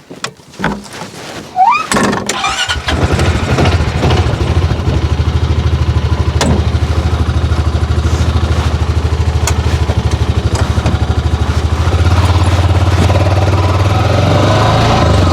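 A few knocks, then a Honda 500 side-by-side's engine starts about two seconds in and runs steadily, picking up a little about twelve seconds in.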